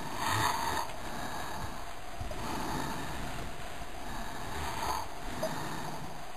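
Heavy, laboured breathing of a climber wading through deep snow, a few slow breaths about two seconds apart, with the rustle of snow being pushed aside.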